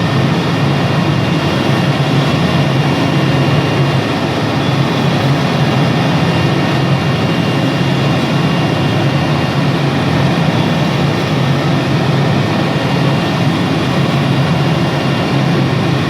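CNC wood router running: a steady, unbroken machine noise with a faint high whine held above it.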